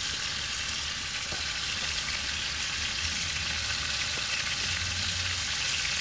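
Chunks of wild boar meat searing in oil in a hot cast iron skillet, sizzling steadily.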